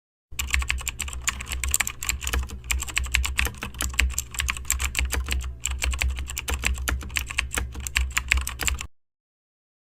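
Rapid, irregular clicking like typing on a computer keyboard, over a steady low hum, cutting off abruptly about a second before the end.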